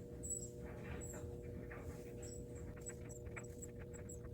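Quiet workbench: a faint steady electrical hum, with a few soft, irregular scratching and handling noises.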